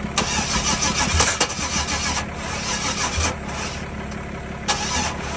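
1994 Chevrolet Camaro engine cranking over on starter fluid without catching and running. It is a crank-no-start: the ignition pulse to the coil packs is not in step with engine rotation, which the mechanic suspects points to a bad engine computer.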